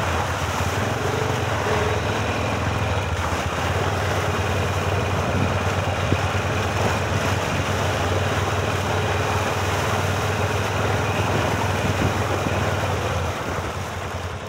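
ATV engine running steadily under way, pulling at an even pace; its note drops off about a second before the end.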